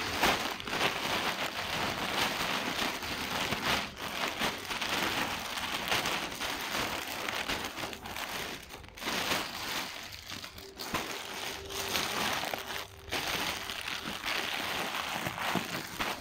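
Thin plastic shopping bag rustling and crinkling as it is handled and folded, continuous with a few short pauses.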